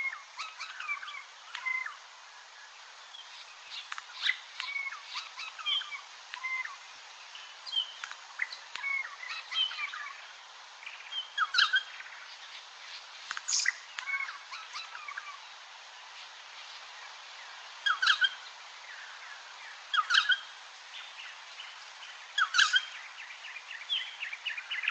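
Recording of a regent honeyeater singing a song learned from a noisy friarbird: short phrases of quick, squeaky notes repeated every few seconds over a steady recording hiss.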